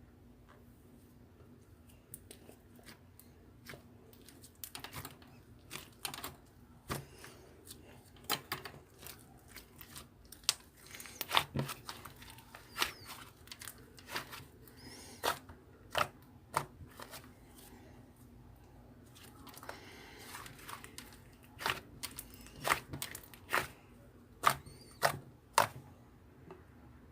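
Slime being squished and pressed by hand, giving irregular sharp clicks and pops, with the loudest clusters a third of the way in and again near the end.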